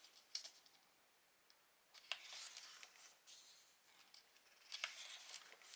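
Faint paper rustling and handling of an instruction booklet as its pages are turned, in a few short bursts with small clicks between quiet gaps.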